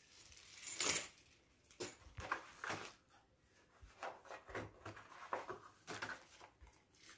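A handful of small gold-coloured board-game pieces clinking together as they are dropped into a plastic bag, loudest about a second in. After that come scattered clicks and plastic rustling as the box contents are handled.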